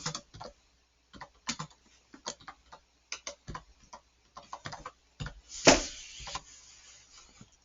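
Computer keyboard keys clicking in irregular runs as a name is typed, with one louder, longer rustling noise about five and a half seconds in.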